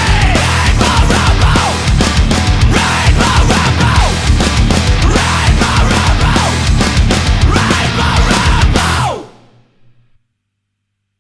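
Loud, heavy post-hardcore band music with drums, which stops about nine seconds in and dies away quickly into silence: the end of a track.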